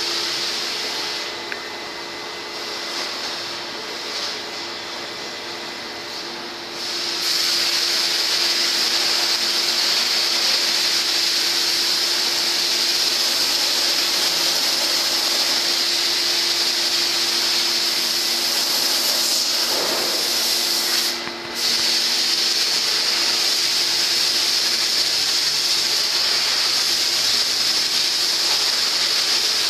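Industrial machinery running in an aluminium works: a loud, steady hiss over a low steady hum. It steps up in level about seven seconds in and drops out for a moment near twenty-one seconds.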